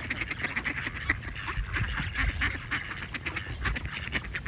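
A flock of ducks quacking, many short overlapping calls and clicks throughout.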